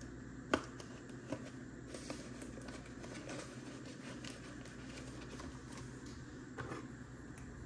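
Paper banknotes and envelopes being handled during counting: quiet rustling with a few light taps, the sharpest about half a second in.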